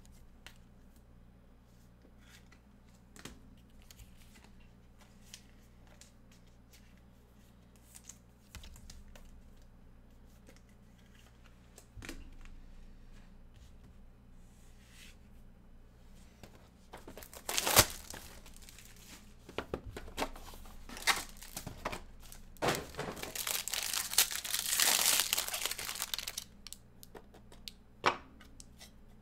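Trading-card packaging being torn open and crinkled by hand, after a stretch of small handling clicks; a sharp snap comes just before the tearing starts, and the crinkling is loudest near the end.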